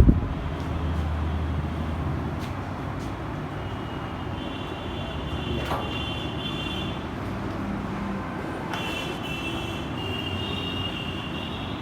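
Steady background traffic noise, with a high, wavering tone sounding twice: from about four to seven seconds in, and again from about nine seconds in to the end.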